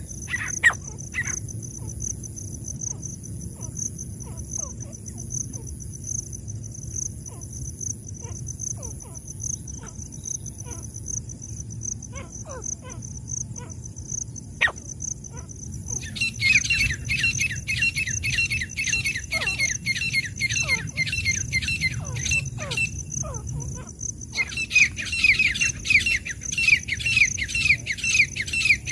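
Francolin (teetar) calling in rapid runs of short repeated notes: a brief run at the very start, then two long chattering bouts from about halfway through to the end, with a short break between them.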